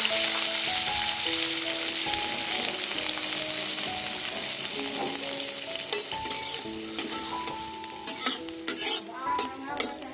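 Vegetables sizzling in hot oil in a pan, the hiss slowly dying down, with a spatula scraping and knocking against the pan several times near the end. A simple instrumental melody of held notes plays underneath.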